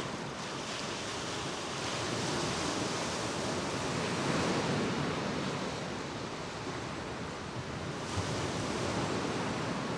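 Small lake waves washing onto the shore and against rock piles, a steady wash that swells and eases.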